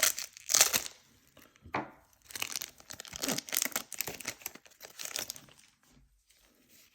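Foil wrapper of a Pokémon booster pack being torn open and crinkled in the hands, in irregular bursts of tearing and rustling that die away about five seconds in.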